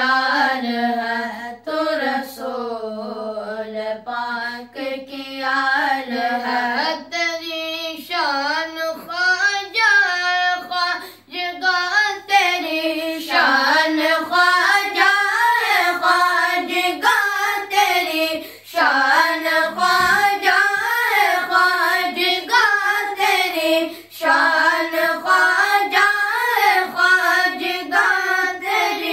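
Four boys singing a manqabat, a Sufi devotional praise song, together with no instruments. The melody moves up to a higher pitch about seven seconds in.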